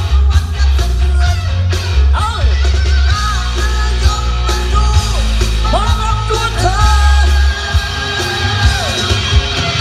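Loud recorded song played through a large outdoor PA sound system: heavy pulsing bass under a singing voice that slides between notes and holds long ones, the longest from about six seconds in to near the end.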